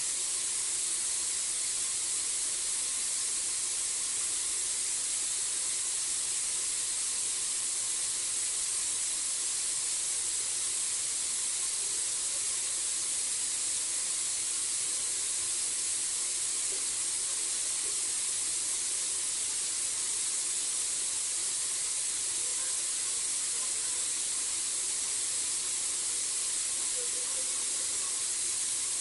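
A steady, high-pitched hiss that stays even throughout, with nothing standing out above it.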